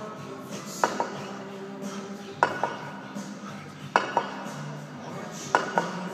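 Two 36 kg kettlebells clanking against each other during double kettlebell swings: a pair of quick ringing metal clinks on each swing, four swings about a second and a half apart.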